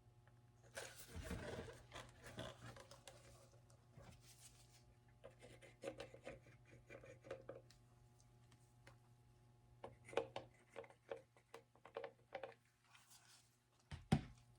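Quiet handling noises of costume armor pieces being worked by hand: scraping, rustling and light tapping, with a longer rustle about a second in and a low thump near the end, over a faint steady hum.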